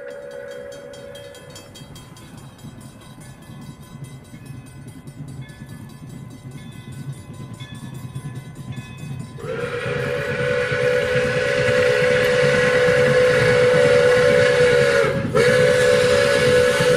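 Pere Marquette 1225, a 2-8-4 Berkshire steam locomotive, sounding its steam whistle as it approaches. One blast ends just after the start. A long, loud blast begins a little past halfway and breaks off briefly near the end before sounding again, over the train's rumble, which grows louder as it comes closer.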